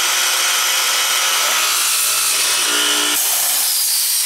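Hinge boring machine's 56C-frame motor driving its boring bits into plywood: a loud, steady mix of motor whir and cutting noise as the hinge cup and pilot holes are bored.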